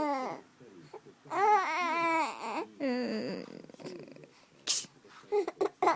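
Baby babbling in two high-pitched, drawn-out vocal sounds over the first few seconds. A short sharp burst comes near the end, followed by a few small clicks.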